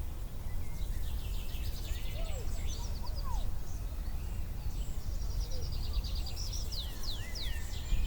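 Summer field and forest ambience: several birds singing and chirping, with quick trills and short falling whistles, over a steady low rumble.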